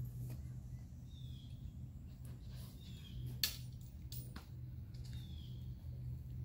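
A single sharp crack about three and a half seconds in from a disc golf tee shot, over a bird's short falling chirps that repeat every couple of seconds.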